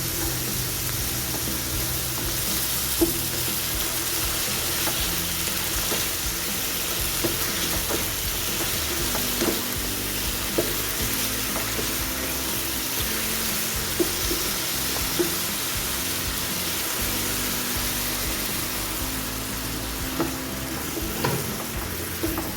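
Food sizzling in hot oil in a frying pan, a steady hiss, with a few sharp clicks scattered through it.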